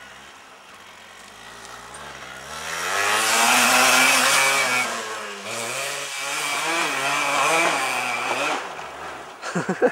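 Yamaha DT 125 trail bike's two-stroke single-cylinder engine as it rides past: growing louder and higher as it nears, loudest a few seconds in, easing off briefly about halfway, then revving again and fading as it rides away.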